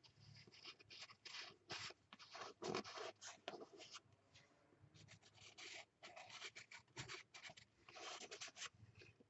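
Faint scratching of a charcoal stick drawn across a paper journal page in short, irregular strokes as shapes are outlined, with a brief pause about four seconds in.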